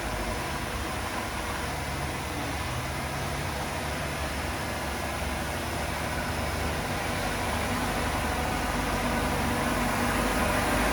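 Heavy equipment's diesel engine running steadily, getting a little louder near the end.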